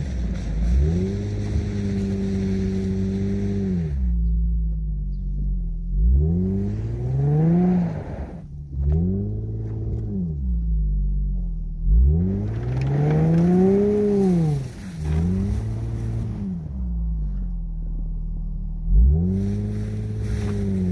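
Infiniti FX35's 3.5-litre V6 revving up and falling back again and again, about eight surges, as the all-wheel-drive SUV pushes through deep snow. A rushing hiss rises and fades with the harder revs.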